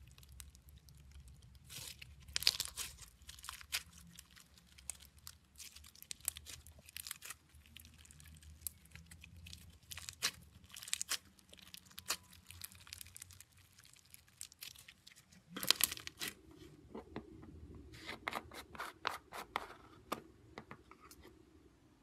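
Clear red slime full of beads being stretched and squeezed by hand, giving off sticky crackling and popping in uneven bursts, loudest about two seconds in and again near the three-quarter mark.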